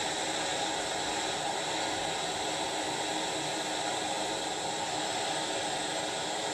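Handheld gas torch burning with a steady hissing blue flame, held on a spoonful of bismuth chips to melt them.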